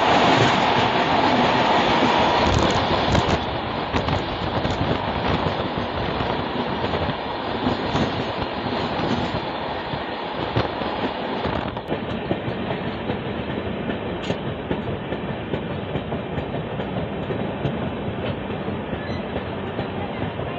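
Kota–Patna Express passenger train passing at speed close by: a steady rush of wheel and rail noise with the clickety-clack of wheels over rail joints, loudest in the first few seconds.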